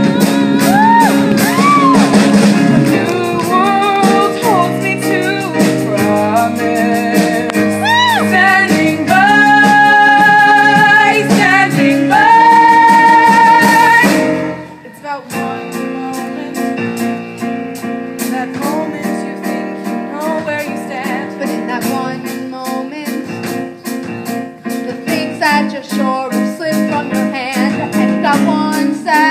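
Show-tune singing with band accompaniment: held, wavering sung notes build to a loud climax that breaks off about halfway through. The music then drops to a quieter passage with a steady beat.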